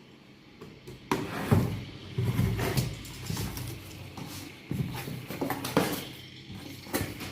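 Cardboard box of a PC case being opened and its packaging handled: irregular thumps, scrapes and rustling, starting about a second in.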